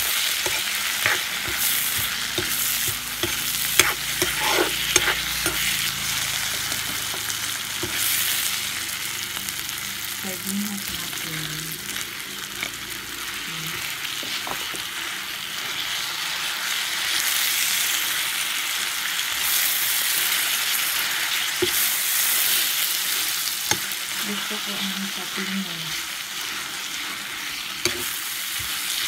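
Vegetables and sardines stir-frying in a large wok: steady sizzling, with a metal spatula scraping and clinking against the pan now and then.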